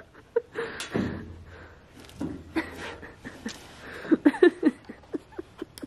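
People laughing and making short effort sounds while one climbs up onto a steel girder, with a brief scrape about a second in.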